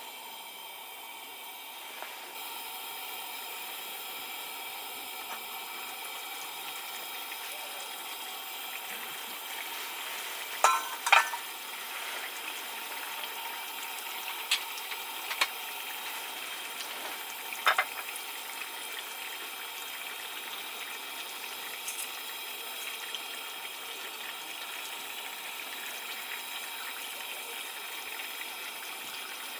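Food frying in a pan: a steady sizzle, with a few sharp clinks of a utensil against the pan in the middle stretch.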